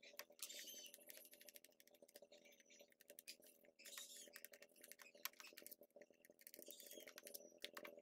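Faint, irregular small clicks and taps of a screwdriver and fingers working the screws of a distributor's plastic cap, over a faint steady hum.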